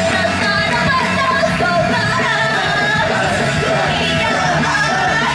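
A woman singing into a handheld microphone over loud pop-rock music, amplified through a live venue's speakers.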